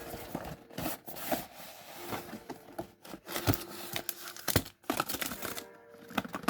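Packaging of a trading card gift set box being torn open and handled: irregular tearing and crinkling with sharp crackles.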